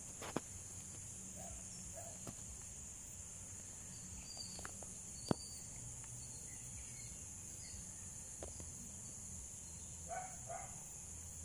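Steady high-pitched drone of insects such as crickets or cicadas. A few sharp clicks sound, the loudest about five seconds in, and a couple of short, faint calls come near the end.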